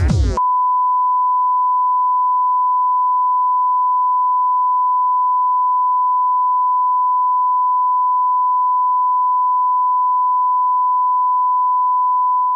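Electronic music cuts off just after the start, followed by a single unbroken electronic beep: one steady, pure high tone that holds at constant loudness.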